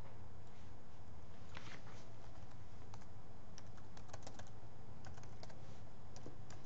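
Computer keyboard typing: scattered keystrokes in short irregular runs over a steady low hum.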